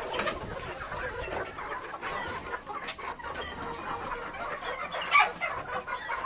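A pen of young gamecock chickens clucking and calling, with many short scattered calls and one louder call about five seconds in.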